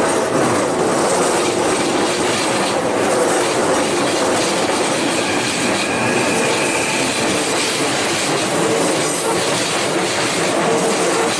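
Keikyu Line train passing close by, its wheels running loudly and steadily over the rails, with a thin high wheel squeal around the middle.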